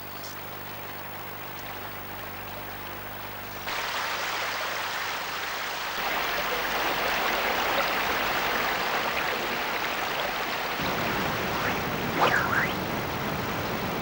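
Rain pattering on a river's surface, then rushing white water of a stream and river in spate. The rush grows louder in steps about four and six seconds in, and a brief faint rising squeak sounds about twelve seconds in.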